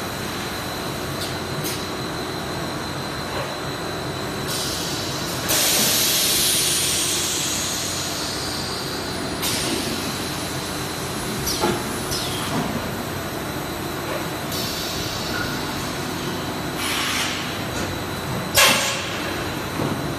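JWZ-BM 12D extrusion blow molding machine running with a steady hum and a thin high whine, broken by hisses of compressed air. A long loud blast of air comes about five seconds in and fades over a few seconds, followed by shorter hisses and a sharp puff near the end.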